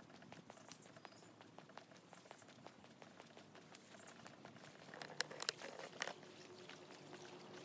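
Faint footsteps and light irregular clicking of someone walking along a paved path, with a few sharper ticks about five to six seconds in.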